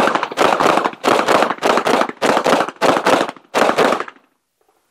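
Rapid string of 9 mm pistol shots from a Glock 19X firing full metal jacket rounds in quick succession while the shooter moves. The firing stops about four seconds in.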